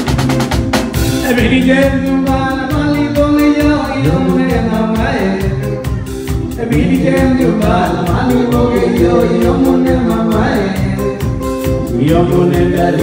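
Live mugithi band music: a quick drum fill in the first second, then singing over the band with drums, electric guitar and a steady beat.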